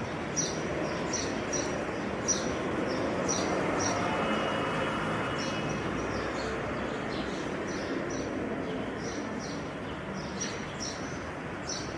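Birds chirping: short high chirps, two or three a second, over a steady background hiss.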